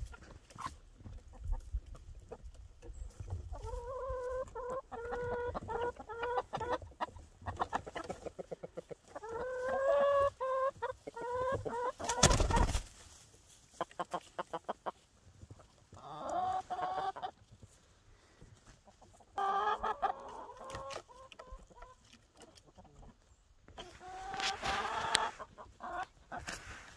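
Backyard hens clucking in several separate bouts of quick, repeated calls. A brief loud burst of noise comes about twelve seconds in.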